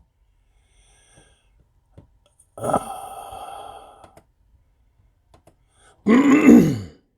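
A man's short wordless vocal sound, sigh-like, with a rising then falling pitch near the end. A fainter tone starts sharply a few seconds earlier and fades over about a second and a half.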